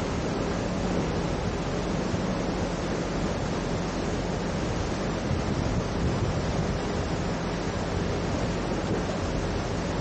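Swollen, muddy floodwater rushing and churning under a road bridge: a steady, even rush of water. Beneath it runs a backhoe loader's diesel engine with a steady low hum.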